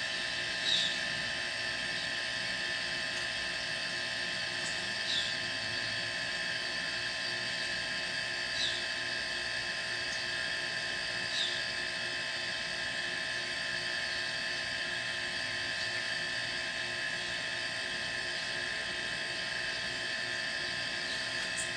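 Two refrigerator compressors running steadily as a homemade air compressor, pumping air into its 100-litre tank: an even hum with several high whining tones. A few brief chirps sound over it, about a second, five, eight and eleven seconds in.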